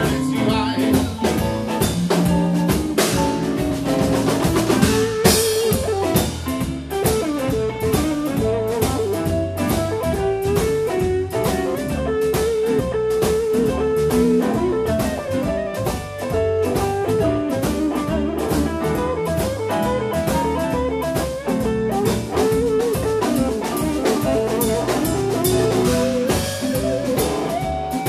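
Live blues band: a semi-hollow-body electric guitar plays a lead solo over bass guitar and drum kit.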